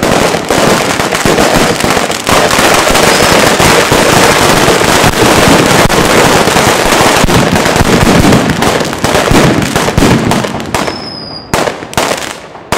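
Ground-launched firework going off in a dense, continuous stream of rapid cracks and bangs. Near the end it thins to scattered crackles and fades.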